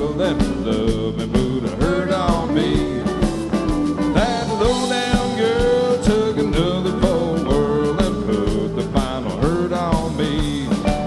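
A country band playing live: a steady drum beat under bass and guitar, with many notes bending up and down in pitch.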